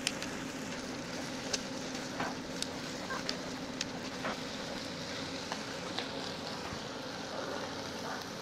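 Pork sizzling on a table grill, a steady hiss of frying fat with sharp, irregular crackles and pops.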